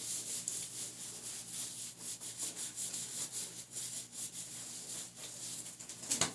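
Hands rubbing wet hair: a steady run of scratchy strokes, two to three a second, with a sharper, louder one near the end.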